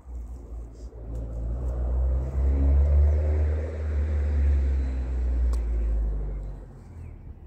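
Low engine rumble of a passing vehicle, swelling from about a second in and fading away near the end.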